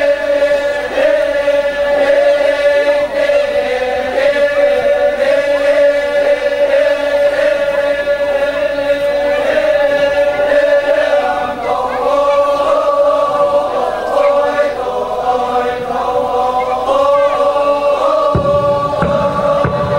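A group of voices chanting together in a slow, sustained melody, with one pitch held steadily underneath.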